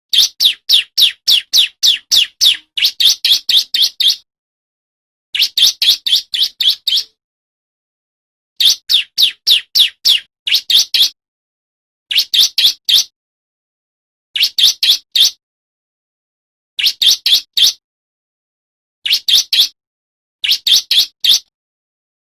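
Male bar-winged prinia (ciblek) singing in fast runs of sharp, high repeated notes, about four notes a second, in bursts of one to two seconds with short silent gaps between them.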